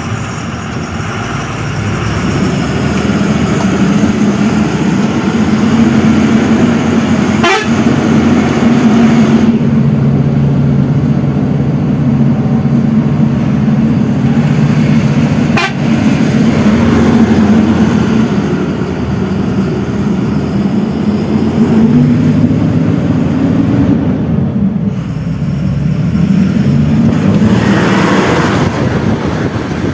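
A truck's engine running steadily with a low drone whose pitch shifts a little, with two sharp knocks, one about a quarter of the way in and one about halfway.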